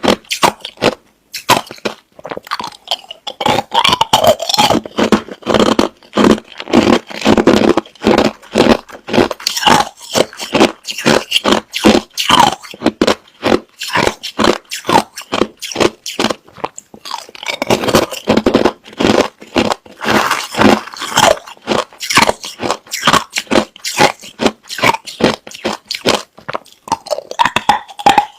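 Hard, clear crushed ice being bitten and chewed close to the microphone: a fast, continuous run of sharp, crackly crunches. There are short pauses about a second in and around seventeen seconds in.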